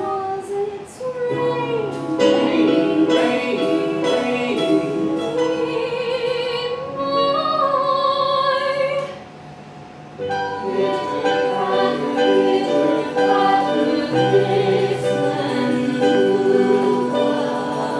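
Live theatre band playing a musical number with singing, including a long sung note held with vibrato. The music drops away briefly about nine seconds in, then the band comes back in.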